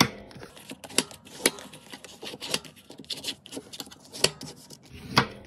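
Folded heavy paper being handled and rubbed along its creases to sharpen them: papery rubbing and scraping strokes with several sharp taps and clicks.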